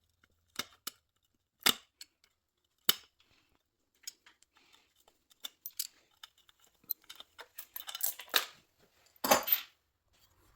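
Sharp metallic clicks and clacks of hand tools and parts being handled while a dirt bike is taken apart. There are three loud single clanks in the first three seconds, then a busier run of clicks, with the loudest clatter near the end.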